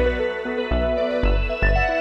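Background music: sustained synth-like notes over low bass notes repeating in a steady beat.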